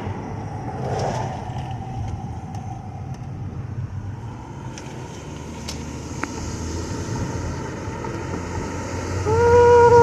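Car cabin noise while driving: a steady low rumble from the engine and tyres, with a few faint clicks. Near the end a loud melodic tone begins and steps between notes.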